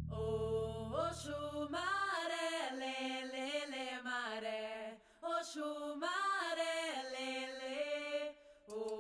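Background music: a slow melody of long, gliding notes, with a low note dying away about two seconds in and two short breaks in the melody.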